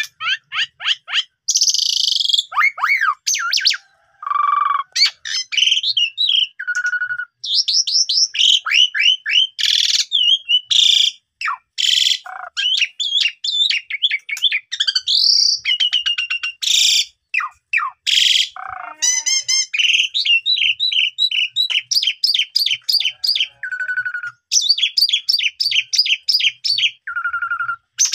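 Asian pied starling singing a long, varied song of rapid chirps, sweeping whistles, trills and a few harsh rasping notes, with hardly a pause.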